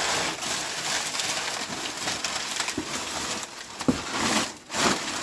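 Cardboard and packing material rustling and crinkling as parts are dug out of a shipping box, with a couple of soft knocks about four seconds in.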